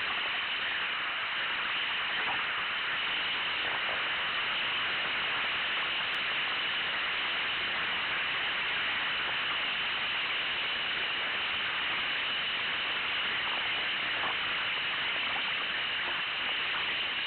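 Steady rushing hiss of river rapids, whitewater running around a kayak as it paddles down the rapid.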